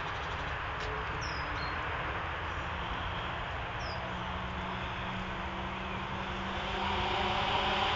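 Steady rush of road traffic close by, with a few short high bird chirps in the first half. Near the end a vehicle engine grows louder as it approaches.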